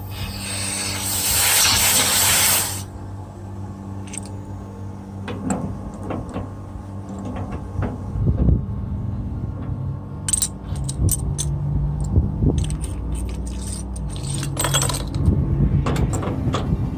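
A burst of hissing for about two seconds near the start, then a steady low hum under repeated metallic clicks, clinks and taps of tools and fittings, thickest in the second half.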